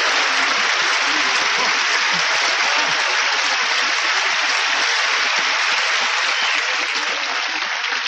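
A large audience applauding steadily, easing off slightly near the end.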